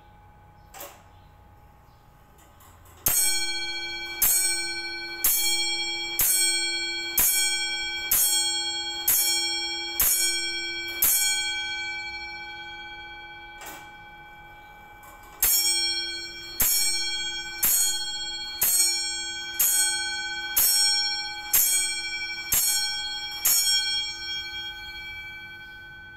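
Comtoise clock's hammer striking its bell: nine strokes about one a second, each left ringing, then after a pause of about four seconds the same nine strokes again. This is the Comtoise repeat strike of the hour. A faint mechanical click comes before each series.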